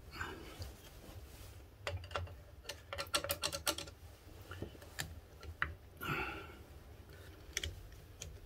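Small metal clicks and taps from a hand tool working at the wheel cylinder on a 1956 Ford Consul's rear drum-brake backplate, checking parts that feel tight and may be gummed up. There is a quick run of clicks about three seconds in, scattered single clicks, and a couple of brief rustles.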